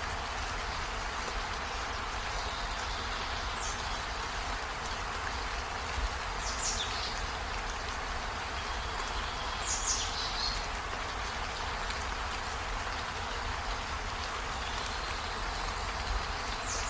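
Steady rain falling, with a short, high, falling chirp recurring every three or four seconds, about four times.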